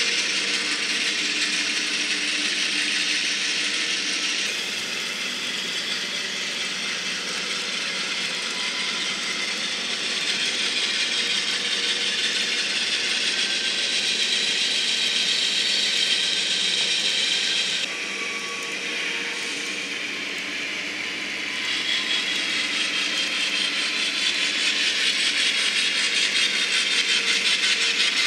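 N-scale model train running on layout track: a steady high rattle and clicking of small wheels on the rails, with a faint whine from the locomotive motors.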